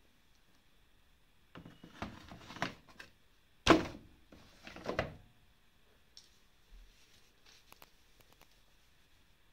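Plastic detergent drawer of an Electrolux Rex washing machine being fitted back into its housing: scraping and rattling for about a second and a half, one sharp knock, then a shorter scrape and a few faint clicks.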